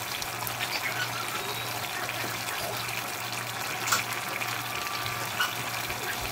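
A pot of curry chicken and vegetables simmering in liquid on the stove: a steady hiss of cooking with a few sharp pops, about four and five and a half seconds in, over a low steady hum.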